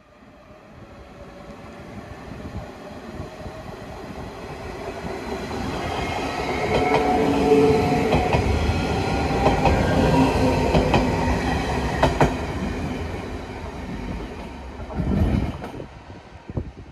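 DSB IR4 (Litra ER) electric multiple unit running past, growing louder to a peak in the middle and then fading, with sharp wheel clicks over the rail joints. A brief low rush comes near the end.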